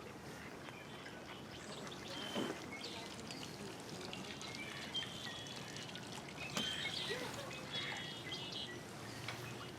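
Lakeside ambience: small birds chirping in short bursts, over a faint steady trickle of water. A few sharp clicks sound in the middle.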